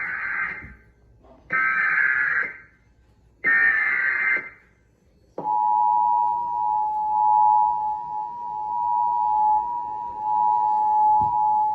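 Emergency Alert System SAME header: the end of one short burst of warbling digital data, then two more identical bursts, encoding a demonstration (DMO) alert. About five and a half seconds in, the steady two-tone EAS attention signal (853 and 960 Hz together) begins and holds.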